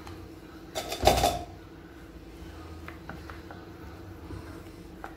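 Silicone spatula stirring flour into cake batter in an enamel pot, with one loud knock against the pot about a second in and a few faint clicks after.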